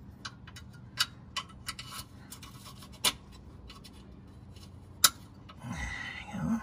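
A handful of sharp, separate metallic clicks as sheet-metal clip nuts are pushed and snapped onto the edges of holes in a Jeep Renegade's front subframe, then a rustling scrape near the end.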